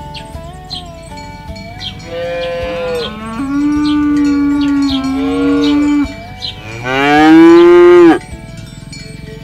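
Cattle lowing: long drawn-out moos from about two seconds in, then a louder final moo near the end that drops in pitch as it stops.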